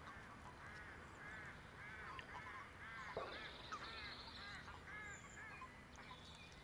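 A faint, steady series of short, arched animal calls, about three a second.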